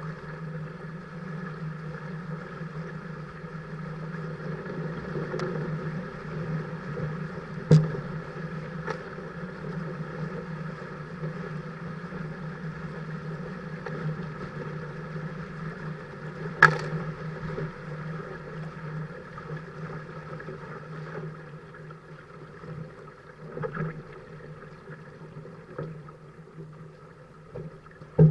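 Dart 15 Sting catamaran under sail: a steady hum with rushing water and wind noise, broken by three sharp knocks.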